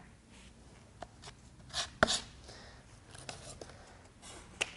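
Scattered scrapes and taps of a steel trowel on a piece of cardboard as thick two-part epoxy patch compound is scraped off onto it and the cardboard is handled. The louder scrapes come about two seconds in, with a sharp tap near the end.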